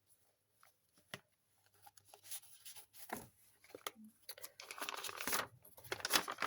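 Paper rustling and crinkling as journal pages and tucked-in paper inserts are handled. It starts almost silent with a few light ticks, and the rustling grows louder in the second half.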